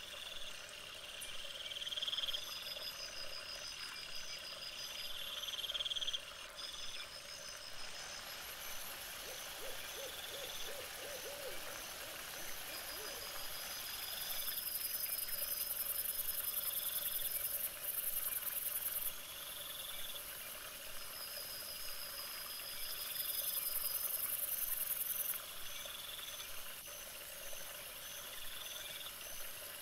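A night chorus of animal calls: several high-pitched calls pulse over and over at an even rate, with a brief wavering series of lower calls about ten seconds in.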